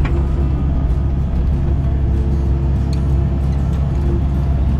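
Excavator's diesel engine running steadily, heard from inside the cab, with a low hum underneath. A steady whining tone above it drops out and returns a few times as the boom and bucket work in the trench.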